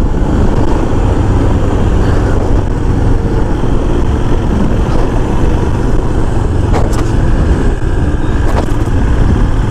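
Riding a Royal Enfield Himalayan motorcycle: steady rumble of its single-cylinder engine under heavy wind noise on the microphone, with two brief clicks late on.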